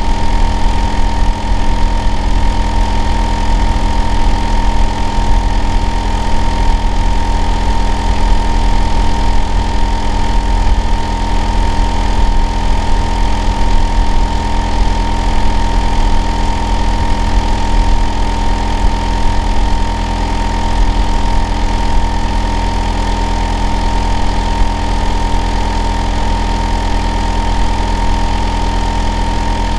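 Hitachi air-conditioner outdoor unit running steadily: a low drone with a steady mid-pitched whine over it. The noise the neighbour calls loud and abnormal.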